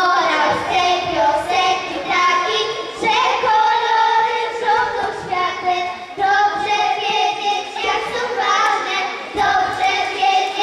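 A group of young children singing a song together into microphones.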